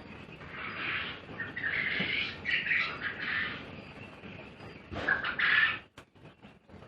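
Quail chirping and calling over and over, the calls loudest about five seconds in. A run of short clicks follows near the end.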